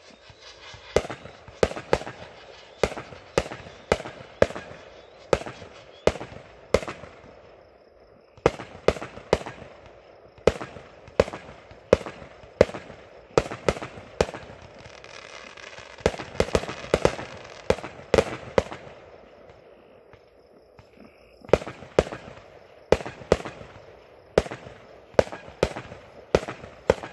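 Consumer fireworks going off in rapid series: sharp bangs about two a second with crackling between them, in three volleys separated by two short lulls.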